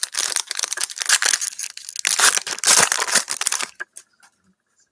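Foil trading card pack wrappers crinkling and tearing as packs are ripped open by hand. A busy crackle for about three and a half seconds that stops abruptly.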